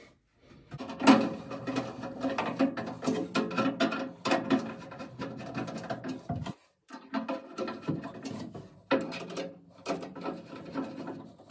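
Phillips screwdriver driving machine screws into a metal mounting plate: a run of clicking and scraping, broken by a short pause about six seconds in.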